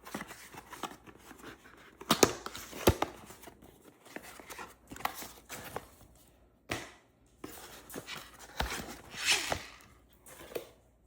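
Packaging being handled and opened: rustling, tearing and crinkling, with several sharp clicks and knocks, the loudest a little after two seconds in and near three seconds.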